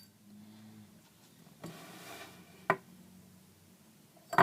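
A Zippo lighter being handled: two sharp metallic clicks, one about two and a half seconds in and one at the end, with a brief soft rustle just before the first.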